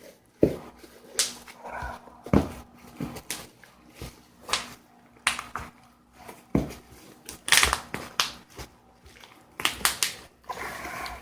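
Irregular sharp clicks, knocks and rustles of packaging being handled and worked open, roughly one sharp knock a second.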